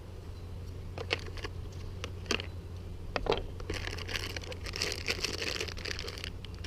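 Hand tools and their plastic packaging being handled: a few light clicks and knocks, then crinkling of plastic through the second half.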